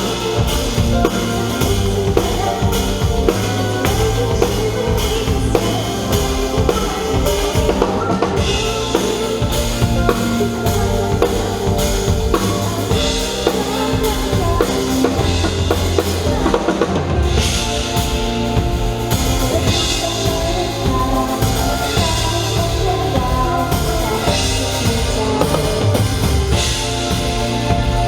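Pop song played loud, with a drum kit (bass drum and snare) keeping a steady beat under bass and other instruments.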